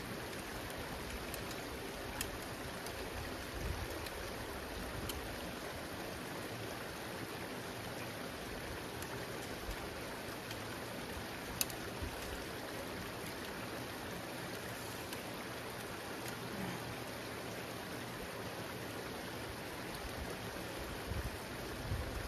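Creek water running steadily, with a few faint clicks.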